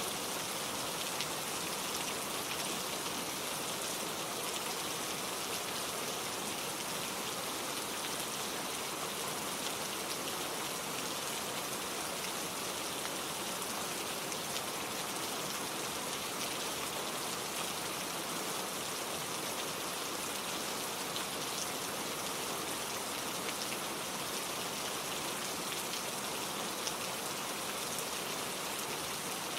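Steady, gentle rain falling, an even hiss of many fine drops with no thunder.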